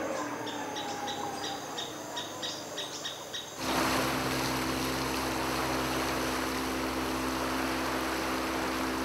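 Forest ambience with a high chirp repeating about three times a second. About three and a half seconds in it cuts abruptly to the steady drone of a wooden river boat's motor under way, with rushing water and wind noise.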